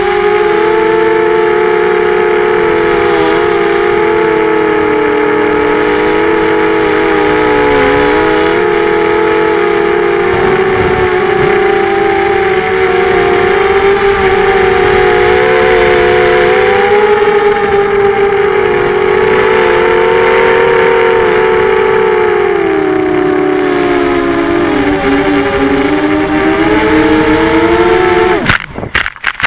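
FPV quadcopter's electric motors and propellers heard from the onboard camera, a whine of several close pitches that rise and fall together with the throttle. Near the end it crashes into the grass: a few knocks, then the motors cut out suddenly.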